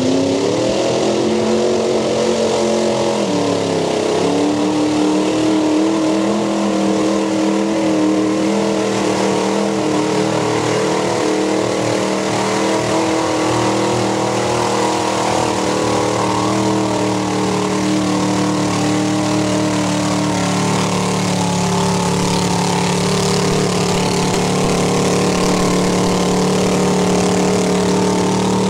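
Mud bog truck's engine revved up hard, easing briefly a few seconds in, then held at steady high revs for a long stretch as the truck churns through thick mud.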